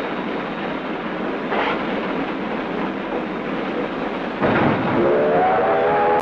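Union Pacific 9000-class 4-12-2 steam locomotive running with a steady rushing rumble that grows louder about four seconds in. About five seconds in, its steam whistle sounds a chord of several tones that rises slightly in pitch and is held to the end.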